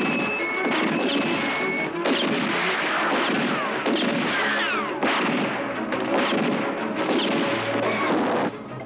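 Dense action-film soundtrack: a run of loud bangs and crashes over music, with a few short high tones in the first two seconds and some falling whistles a little later.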